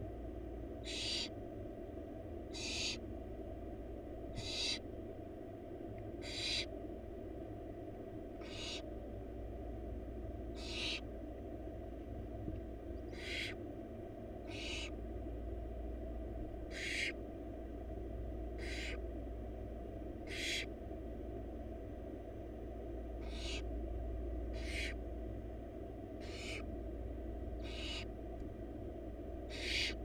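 Barn owl nestlings giving their hissing begging calls, short breathy hisses repeated about every second and a half to two seconds, while being fed. A steady low hum runs underneath.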